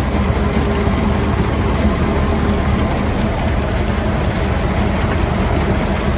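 Concrete line pump running steadily, a loud constant engine drone with no let-up.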